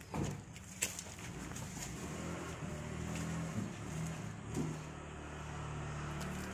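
Mitsubishi Canter truck's diesel engine running steadily, kept running for a test of its exhaust brake. There are a couple of sharp clicks in the first second.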